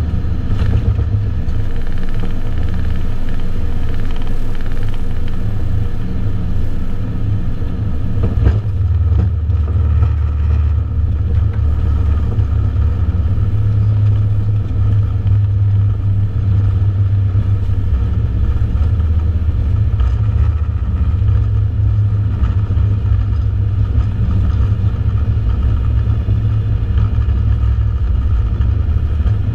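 Steady low rumble inside an airliner's cockpit as it rolls out along the runway after touchdown, with a single sharp click about eight seconds in.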